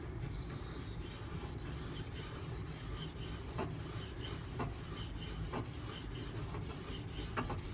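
Steel knife blade (8Cr13MoV) being ground back and forth on a Naniwa Professional 400 grit sharpening stone: a steady gritty hiss broken into strokes about twice a second.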